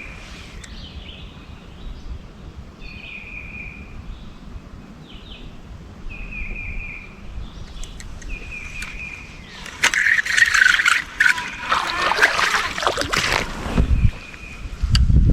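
A songbird repeats a short trill every few seconds. About ten seconds in comes several seconds of loud splashing and thrashing, a hooked largemouth bass fighting at the surface as it is landed.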